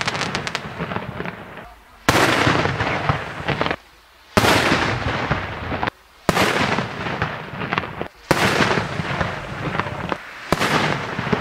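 Fireworks bursting and crackling overhead. The sound comes in segments of about two seconds, each starting suddenly at full loudness and breaking off into a short near-silent gap where the footage is cut.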